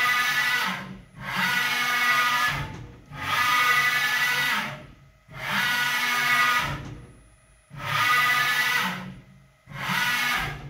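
CNC mill axis making repeated full-speed rapid traverses, driven by Chinese AC servo motors through the ballscrew: about six moves roughly two seconds apart, each a whining rush that rises and falls in pitch as the axis speeds up and slows down, with short pauses between. The servo drives are not yet fine-tuned.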